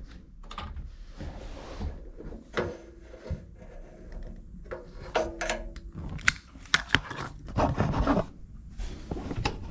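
Irregular scraping, rubbing and clicking handling noises at a gas water heater's burner access while its pilot is being lit by hand, with a few brief squeaks.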